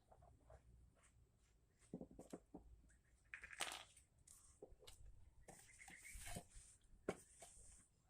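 Faint handling noise: scattered small clicks and taps, with two short hissing rustles in the middle.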